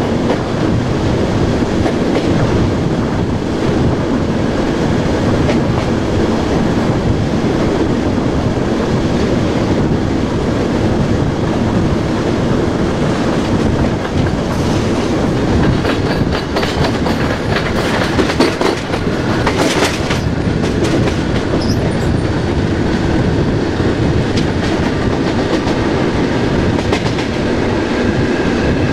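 A modernised SNCB AM80 electric multiple unit running along the line: a steady rumble of wheels and running gear with a faint whine from the traction equipment. A run of sharp clicks and rattles comes about halfway through.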